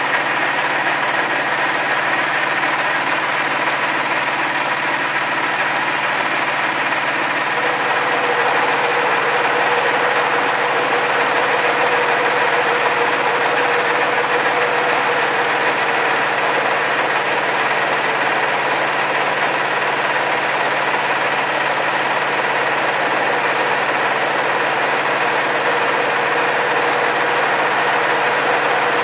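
Small flat-die pellet mill and its drive running steadily under load as ground spruce and hemlock bark is hand-fed into its hopper and pressed into pellets, a dense even machine drone. The drone grows slightly louder about eight seconds in.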